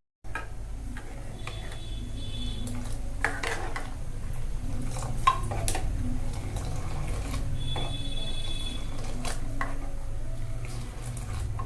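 A spoon stirring milk tea simmering in a pan, scraping and clinking against the pan at irregular moments over a steady low rumble.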